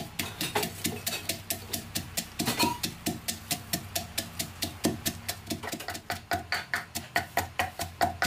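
Wooden pestle pounding garlic cloves in a clay mortar: steady, even knocks at about four a second as the cloves are crushed into a coarse mash.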